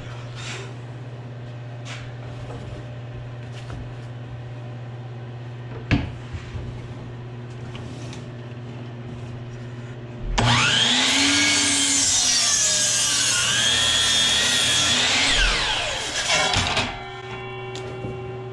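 DeWalt sliding compound miter saw starting up about ten seconds in and cutting a 45-degree angle through a green hemlock 4x6 post for about six seconds, its whine falling as the motor winds down. Before that, a steady low hum and a single knock.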